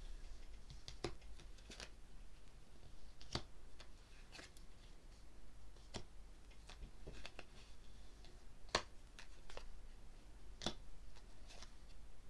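Tarot cards being handled and laid down: a scattered run of soft, irregular clicks and taps, three of them louder, over a faint low hum.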